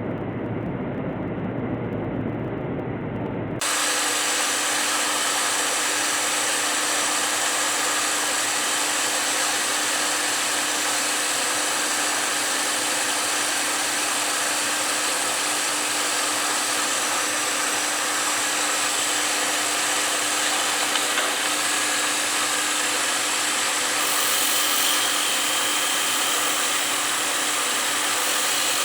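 A metal lathe runs steadily with a constant hum, and a high hiss sounds as it turns the joint between briar and clear acrylic on a cigarette holder. Before it, a low rumble cuts off abruptly about three and a half seconds in.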